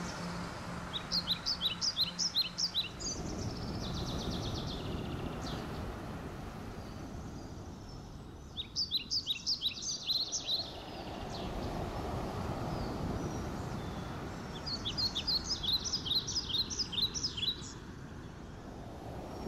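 A songbird singing three times, each song a rapid run of high chirping notes lasting two to three seconds, over a steady outdoor background hiss.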